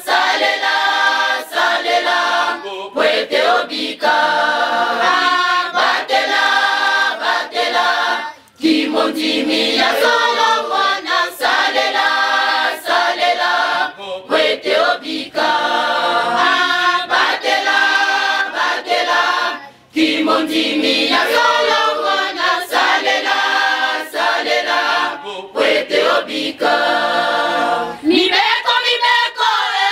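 Choir of women and girls singing unaccompanied in unison, in long phrases with short breaks about eight and twenty seconds in.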